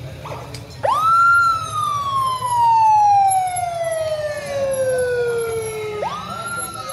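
Police escort motorcycle's siren wailing: a quick rise about a second in, then a slow falling sweep lasting about five seconds, and a second quick rise near the end.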